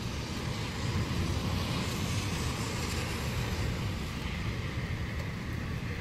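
Thunderstorm at night: steady rain hiss over a low, continuous rolling rumble of distant thunder, with no sharp crack.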